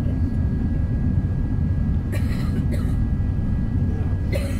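Steady low rumble of airliner cabin noise at a window seat of an Airbus A380 in descent, from its four Rolls-Royce Trent 900 engines and the airflow, with a faint steady whine. Brief hissy noises sound about two seconds in and again near the end.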